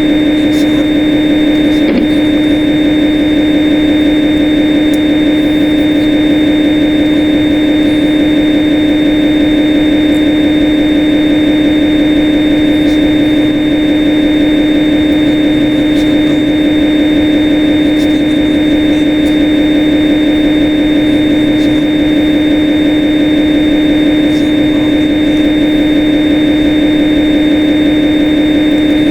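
Steady, loud machine hum with a constant low drone and a fainter high whine, unchanging throughout.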